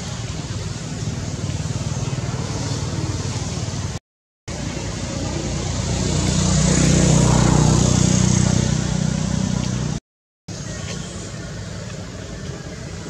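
Road traffic: a motor vehicle's engine running steadily, with one vehicle passing that swells up and is loudest about seven to eight seconds in, then fades. The sound cuts out completely for a moment twice.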